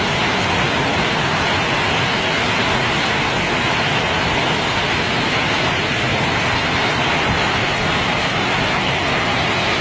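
Heavy rain pouring down, a loud, steady, dense rush of noise.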